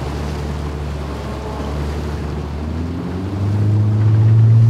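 Motorboat engine running steadily under way, then speeding up with a rise in pitch and loudness a little past three seconds in. Wind noise on the microphone lies over it.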